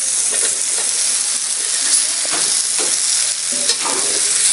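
Diced raw potatoes sizzling as they hit hot oil and masala in an aluminium kadhai, with a slotted metal spatula scraping and stirring against the pan.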